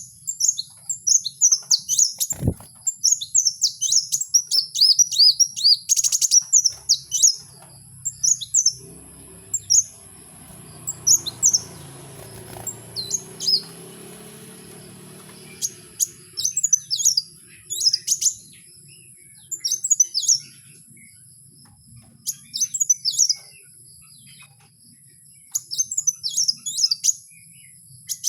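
A kowul bird singing: clusters of sharp, high chirps and short gliding notes with brief pauses between them, and a fast rattling trill about six seconds in. A low thump comes about two seconds in, and a faint low rumble runs under the song through the middle.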